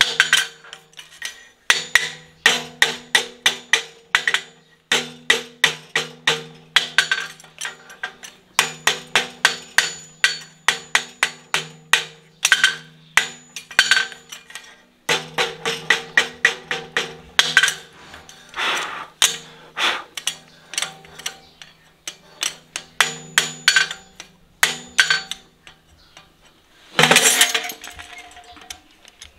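Farrier's hammer striking a hot steel horseshoe on an anvil in quick runs of ringing blows, about three to four a second, with short pauses between runs; the anvil rings on between strikes. Near the end comes a louder, harsher noise lasting about a second.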